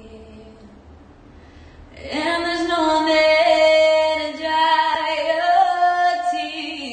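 A young woman singing solo: soft for the first two seconds, then a loud phrase of long held notes.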